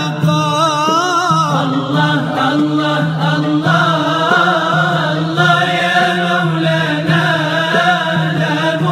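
Nasheed: a sung devotional melody with wavering, ornamented vocal lines over a steady low drone.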